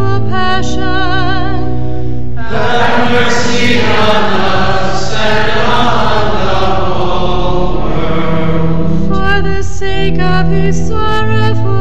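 Sacred vocal music: voices singing a slow chant with long held notes. The sound grows fuller and denser for several seconds in the middle, then thins back to single sustained notes.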